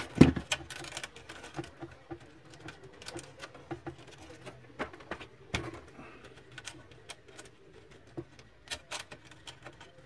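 Irregular small clicks and taps from hands working inside an HP LaserJet 1320 laser printer as its wiring is pulled loose from the plastic frame, with a louder knock right at the start.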